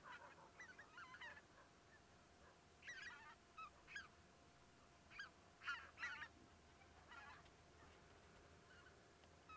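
Faint calls of distant birds, coming in four short bunches of several notes each. The loudest bunch comes a little before the middle.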